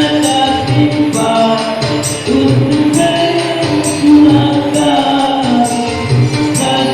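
Music with sustained sung notes over a steady beat, with tambourine-like jingles on top.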